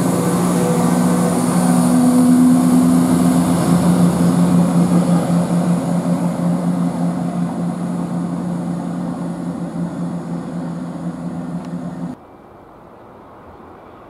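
Class 170 Turbostar diesel multiple unit moving off, its underfloor diesel engines running with a steady drone over wheel noise that slowly fades as the train draws away. The sound cuts off abruptly about twelve seconds in, leaving only faint background.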